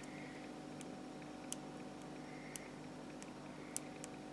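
Faint, sharp clicks about once a second: the new tactile push-button switches on a Vauxhall Corsa key fob circuit board being pressed to test it.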